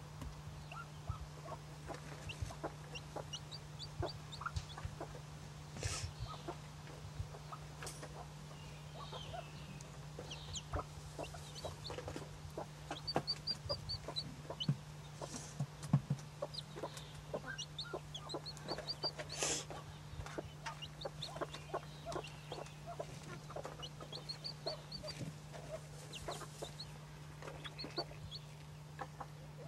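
Broody bantam hen clucking softly on her nest while her newly hatched chick peeps in several runs of quick, high chirps, with light rustling in the nest bedding.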